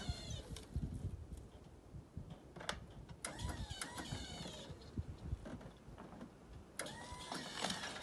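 A truck-mounted beehive crane's motor whining in short runs as the boom is worked, each run opening with a click and bending in pitch as it starts: one ends just after the start, another comes about three seconds in, and a third near the end.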